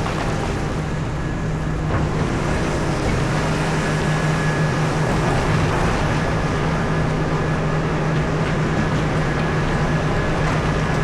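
Large mining excavator's engine running under load, a steady low drone over dense mechanical noise, with a faint high whine that comes in a few seconds in.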